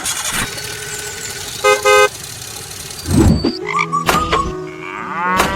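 A vehicle horn honks twice in quick succession about two seconds in, over a steady noisy rumble. A heavy thud follows about a second later.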